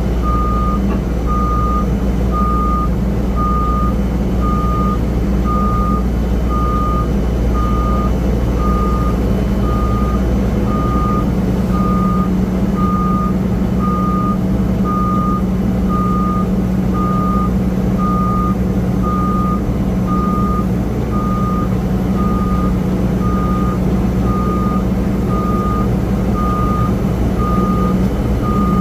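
Ground vehicle backup alarm beeping steadily at about one beep a second, over a steady low rumble of ramp machinery.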